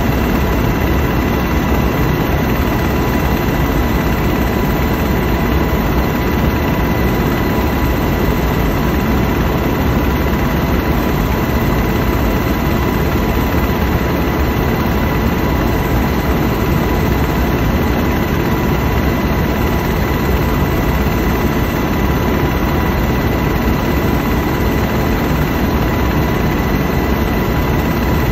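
Helicopter engine and rotor noise heard from inside the cabin: a loud, steady drone with a constant high whine running through it.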